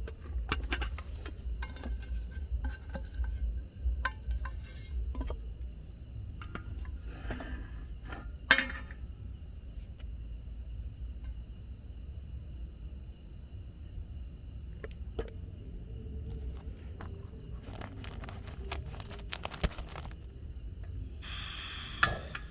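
Insects chirping steadily in two high tones over a low background rumble, with scattered light clicks and taps in the first few seconds and one sharp knock about eight seconds in.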